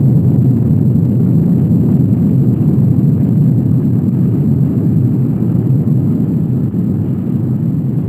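Deep, steady explosion rumble used as the sound effect for a Big Bang animation, easing slowly toward the end.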